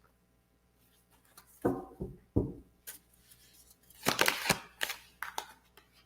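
Tarot cards being handled: a few short flicks and snaps, with a cluster of sharp clicks and rustling about four seconds in.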